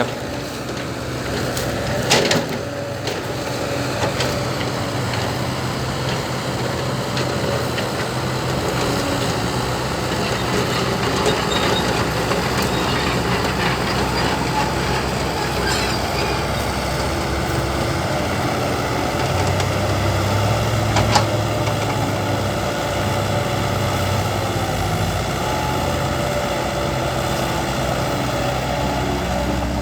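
Heavy diesel engines of an excavator and dump truck running steadily at a digging and loading site, with the engine note shifting partway through. A couple of sharp knocks sound, one about two seconds in and one about three-quarters of the way through.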